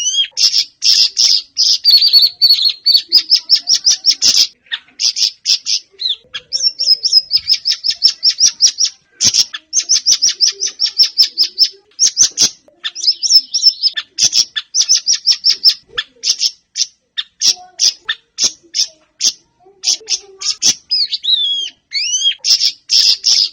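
A Siri Siri songbird singing: long fast runs of sharp, high chirps and trills, broken by short pauses, with a few falling slurred notes near the end.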